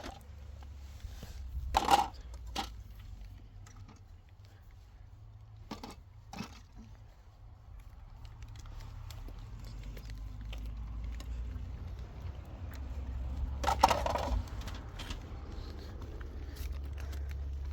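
Scattered clicks and knocks of objects being handled, with a louder clatter about two seconds in and again about fourteen seconds in, over a low steady rumble.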